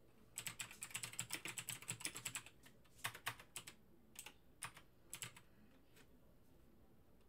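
Typing on a computer keyboard: a fast run of keystrokes lasting about two seconds, then a few slower, scattered key presses.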